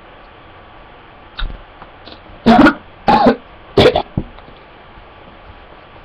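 A person coughing three times in quick succession, loud, with a faint click shortly before.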